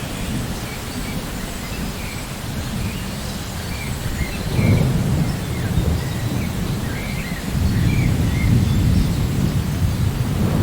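Steady rain with rolling thunder, a low rumble that swells about halfway through and again in the second half.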